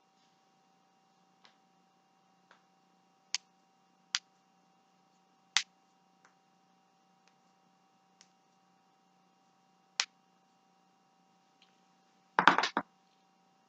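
Neck joints cracking: single sharp pops a second or more apart, some faint and four louder, then a quick run of several cracks near the end.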